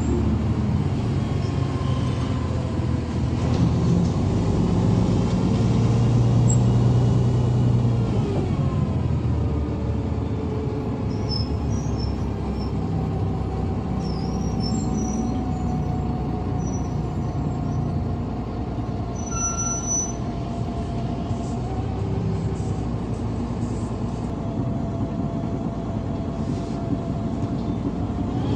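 Cabin noise of a GolAZ-5225 city bus under way: the engine and drivetrain run steadily, their pitch rising and falling with speed. There are a few brief faint high squeaks midway.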